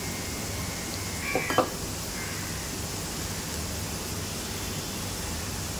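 Onions and whole spices frying in oil in a wok, a steady sizzling hiss, with one short tap about a second and a half in.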